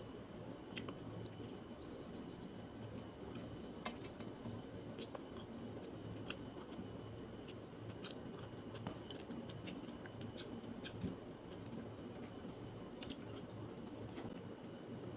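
Close-miked eating sounds: grilled chicken pulled apart by hand and eaten, heard as scattered sharp clicks and crackles over a steady low background noise.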